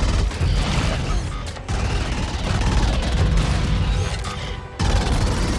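Action-film soundtrack: dramatic score mixed with heavy booms, crashes and mechanical sound effects. The whole mix cuts off sharply twice and then comes back.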